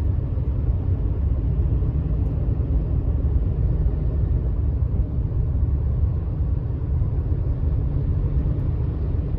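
Steady low road rumble of a moving vehicle, without a break.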